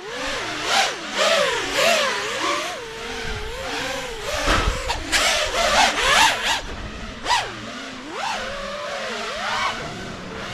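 FPV quadcopter's brushless motors whining under constantly changing throttle, the pitch swooping up and down, with bursts of rushing propeller noise that are loudest in the middle.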